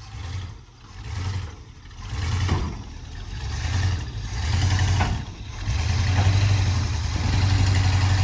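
Old pickup truck's engine running under load in four-wheel-drive low, pushing a dead Chevy Blazer bumper to bumper. The engine note swells about two and a half seconds in and again from about six seconds on, with a couple of short clunks along the way.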